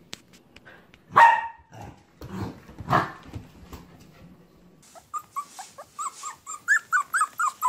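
A Samoyed puppy barks twice, about a second in and three seconds in. From about five seconds, a small black-and-tan puppy takes over with a quick run of short, squeaky whimpering yelps, several a second.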